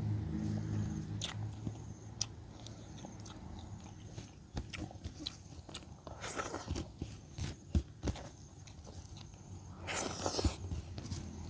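A person eating frog with rice by hand: close chewing and biting with sharp crunches and wet mouth clicks, and louder noisy bursts around six and ten seconds in as food is taken into the mouth. A low steady hum sounds in the first second or so.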